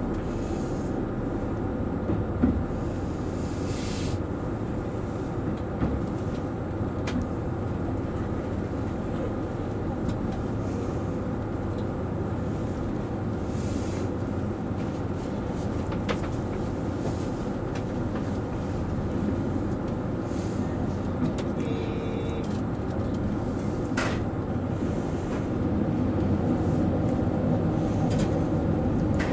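Series 85 diesel railcar running slowly with a steady low rumble from its engine and running gear, heard from the driver's cab. A few sharp clicks come from the wheels over the rails, and the sound grows a little louder near the end.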